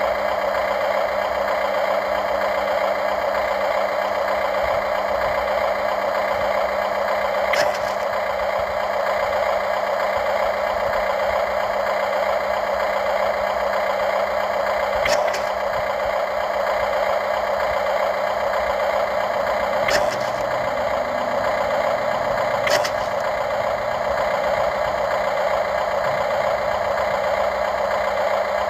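Radio-controlled model excavator's motor running with a steady whine, with four short sharp clicks spread through it.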